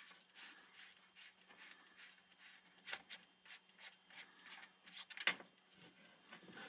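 Faint rubbing and small clicks of fingers and a rag working at a Stahlbus oil drain valve on an engine oil pan, unscrewing its dust cap by hand. A couple of slightly louder ticks come about three and five seconds in.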